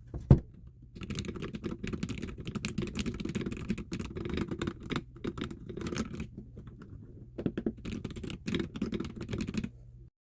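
Typing on a custom-built keyboard: a fast, continuous run of key presses, with a brief lull about seven seconds in. A single loud knock comes just before the typing starts.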